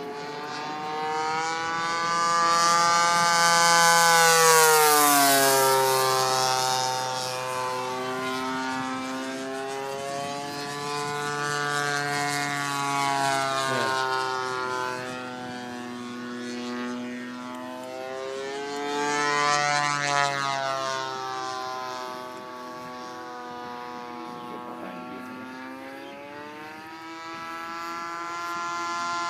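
Single 36cc engine of a large radio-controlled warbird spinning an 18x10 propeller in flight, a steady drone that rises and falls in pitch and loudness as the plane makes passes, loudest about four, twelve and twenty seconds in.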